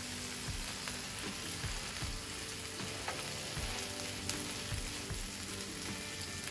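Butter and masala sizzling steadily on a hot tawa as halved pav buns are pressed into it to toast.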